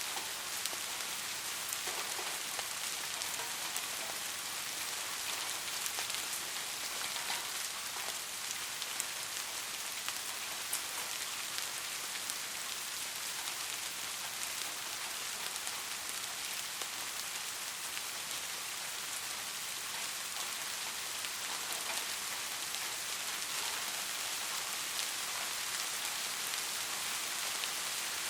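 Steady rain falling, with scattered sharp drop ticks standing out over the even hiss. No thunder.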